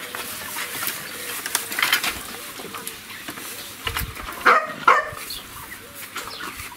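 A dog barking twice in quick succession, about two-thirds of the way through, over faint farmyard background noise.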